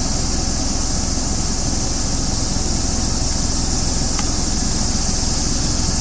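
A steady, high-pitched insect chorus, with a steady low hum underneath.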